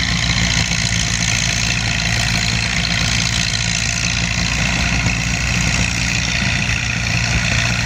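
Minneapolis-Moline 5-Star tractor engine running steadily under load as it pulls a weight-transfer sled down a dirt pulling track.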